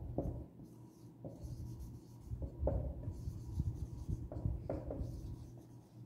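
Writing by hand: a series of short, irregular pen strokes as a word is written out.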